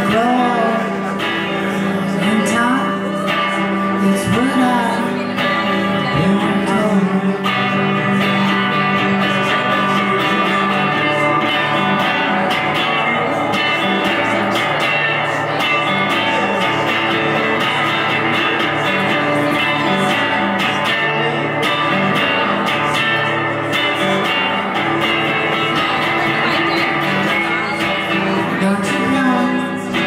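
Stratocaster-style electric guitar played through an amplifier: a busy instrumental passage of quickly picked, ringing notes with no break.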